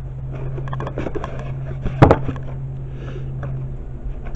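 Mystery Tackle Box being opened and its packaging handled: scattered rustles and small clicks, with one sharp snap about two seconds in, over a steady low hum.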